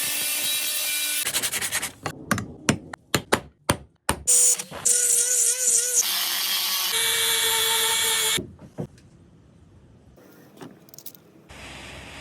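Metalworking power tool, such as a grinder or sander, running in several short bursts of hissing noise over a steady motor hum, with sharp metal clicks and taps between them. One burst ends as the motor's pitch drops.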